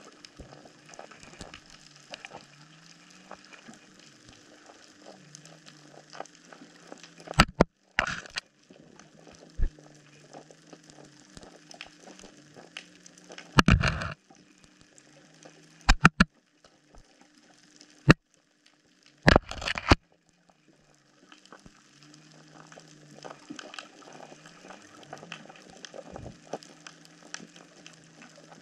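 Underwater sound at the reef floor picked up by a submerged camera: a constant fine crackling with a low hum that wavers in pitch, broken by several loud knocks, the loudest around the middle.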